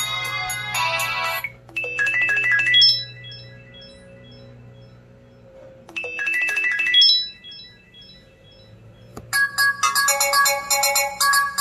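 Samsung Exhibit 4G (SGH-T759) phone ringtones playing. One tune ends, a short chiming phrase plays twice about four seconds apart, and a busier, fast-repeating melody starts near the end.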